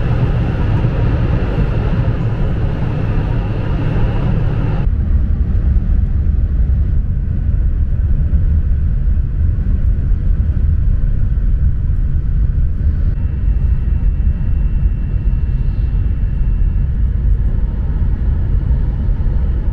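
Cabin noise inside an E6-series Komachi Shinkansen running at about 316 km/h: a loud, steady, deep rumble with a hiss above it. The hiss drops sharply about five seconds in, and a faint steady high whine runs for a few seconds in the second half.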